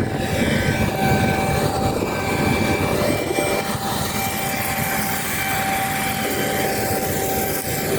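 Harvest machinery running: a steady engine drone with a constant high whine from the combine harvester and tractors working the wheat field.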